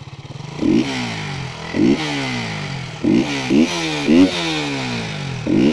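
KTM Duke 200's single-cylinder engine idling with its exhaust, and the throttle blipped about six times. Each time the revs shoot up sharply and fall quickly back to idle.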